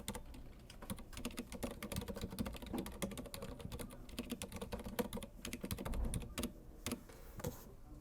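Typing on an Archiss Maestro 2S mechanical keyboard with Cherry MX Silent Red switches: a quick, uneven run of soft keystrokes that grows sparser near the end.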